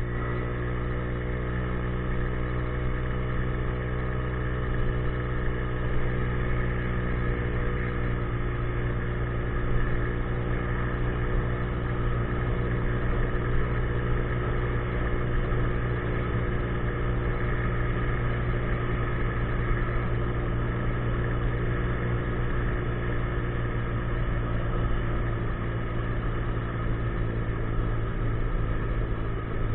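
A 50cc scooter's single-cylinder engine idling steadily at a constant low pitch.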